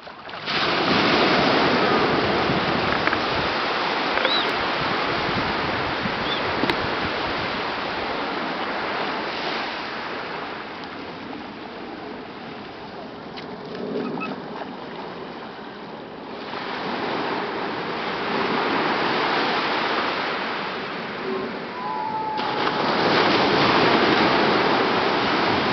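Ocean surf rushing and washing onto the beach, going quieter for a few seconds in the middle, with the splashing of a dog running through the shallows.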